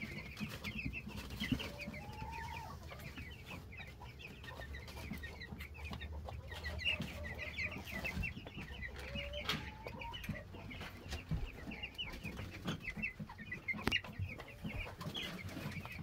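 Mixed pen of meat chickens and meat ducks calling: a dense, continuous chorus of short high chirps, with an occasional longer, lower call.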